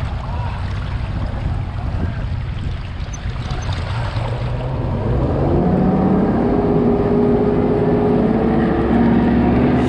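An engine running with a steady low rumble, its pitch rising as it speeds up from about halfway through.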